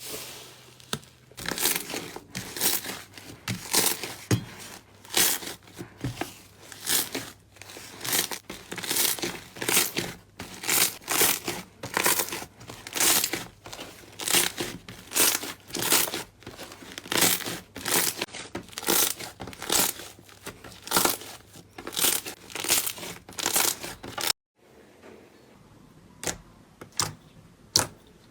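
Slime being squeezed and pressed by hand, crackling and popping in repeated bursts about two a second. It cuts off suddenly about 24 seconds in, and a few sharp clicks follow near the end.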